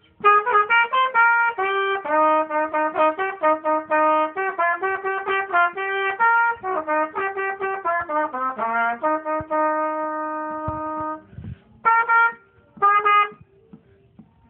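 Solo trumpet playing a passage of quick separate notes, with a long held note about nine seconds in and two short notes after it before the playing stops.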